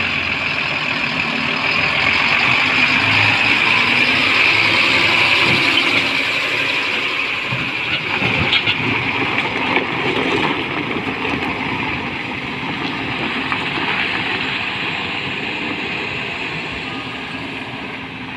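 BharatBenz tipper truck's diesel engine running as the truck drives off slowly, with a few knocks from the truck about 8 to 10 seconds in. It grows fainter over the last several seconds as the truck moves away.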